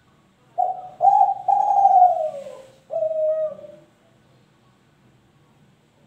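Three-month-old spotted dove of the Kelantan tekukur song strain cooing one phrase of four notes, the third long and falling in pitch.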